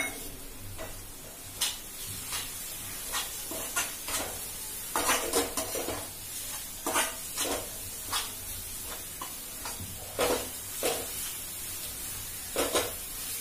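Metal slotted spatula stirring and scraping a frying tomato-onion masala in a steel pan, in irregular strokes and taps over a soft sizzle.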